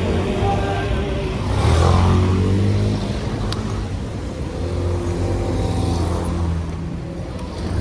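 Busy city street traffic: engines running low and steady, with one vehicle passing close and loudest about two seconds in.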